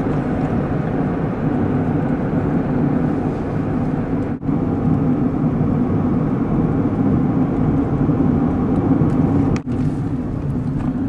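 Steady engine and road noise of a van heard from inside its cabin while driving, windows closed. The sound dips out for an instant twice, about four and nine and a half seconds in.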